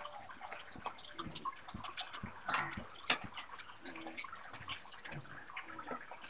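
Ladle clinking against a metal pot and bowl while scooping out a coconut-milk stew, with small splashes and drips of liquid; a louder clatter comes about two and a half to three seconds in.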